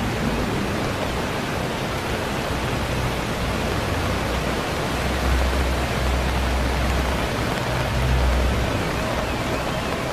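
Steady rushing water, as of floodwater or heavy rain, with a deep rumble underneath that swells in the middle.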